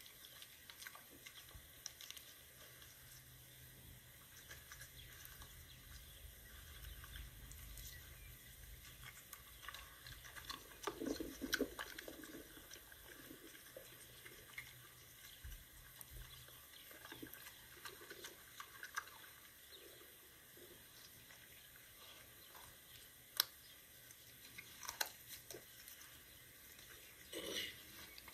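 A dog chewing and biting into a raw rabbit carcass: faint, irregular wet crunches and bites, with a cluster about eleven seconds in and several sharper ones near the end.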